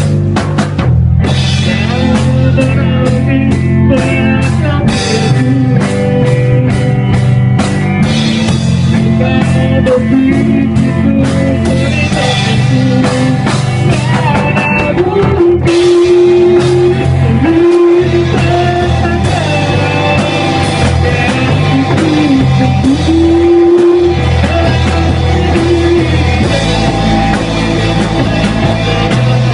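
Rock song with electric guitar, drum kit and a man singing, with long held notes in the second half.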